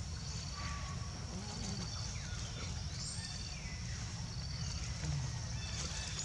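Forest ambience: short trilling chirps of birds or insects repeating about every two seconds and a few faint whistled calls over a steady high hiss, with a continuous low rumble underneath.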